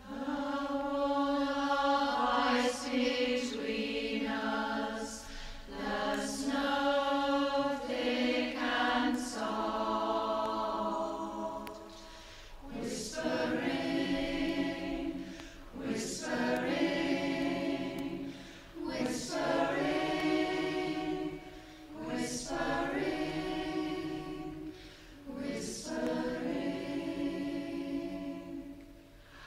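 Four-part (SATB) community choir singing, several voice parts together in long phrases with brief breaks between them and crisp 's' sounds, recorded on a phone.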